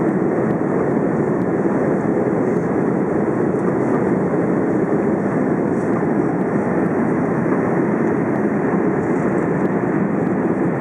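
Steady cabin noise of an Airbus A330 climbing after take-off: jet engines and rushing air, heard from inside the passenger cabin at a constant level.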